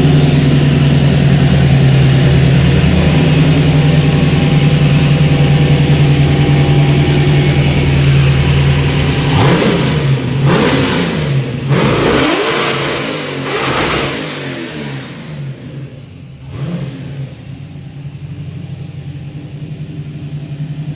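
LS V8 with a Holley Sniper 2x4 dual-quad EFI running on E85, at a steady high idle. From about nine seconds in it is revved several times, then it drops back to a lower, quieter idle near the end.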